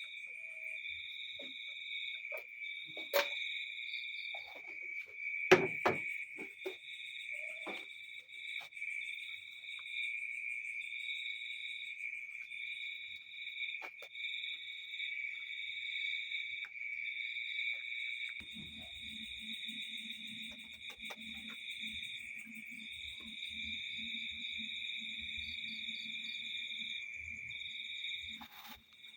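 Crickets chirping steadily, one continuous trill with a higher trill that comes and goes about once a second. A few sharp knocks fall in the first seconds, the loudest about five seconds in. A low buzzing hum joins about eighteen seconds in.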